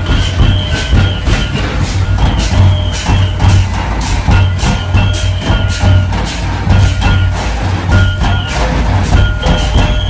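Live procession drumming: large barrel drums beaten with sticks in a fast, dense, steady rhythm with heavy low thuds. A high, wavering piped tone comes and goes over the drums.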